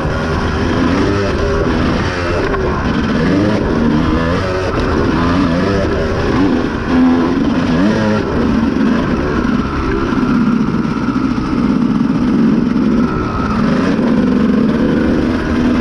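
Honda CR250 two-stroke dirt bike engine, heard from on board while riding: revs rise and fall over and over as the throttle is worked, over a steady rush of wind and tyre noise.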